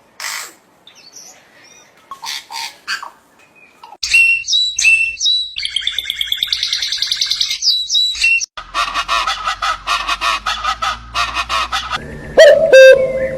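A run of different bird calls played one after another: short chirps and calls, then a fast rapid-fire stretch of calls, then two loud honks near the end.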